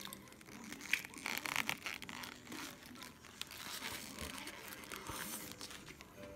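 Crinkling and crunching as a McSpicy Shanghai burger, a crispy fried chicken fillet burger in its paper wrapper, is handled and eaten, in irregular bursts of crackles and clicks.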